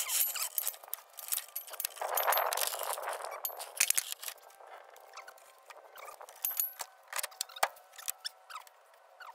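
Daytona steel floor jack being rolled and set in place on concrete: scraping, with a longer scrape about two seconds in, and scattered metal clicks and clanks.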